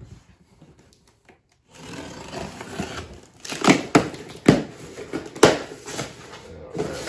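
Cardboard packaging being handled as a small box is opened: a crinkling rustle that starts a little under two seconds in, with several sharp snaps and knocks of the box and its flaps.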